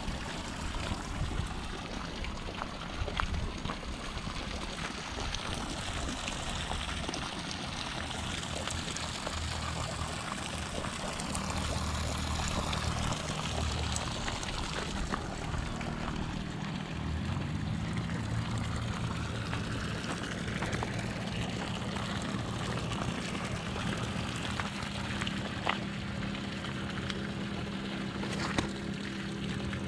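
A steady low motor hum that grows stronger and more even about halfway through, over a constant wash of trickling water.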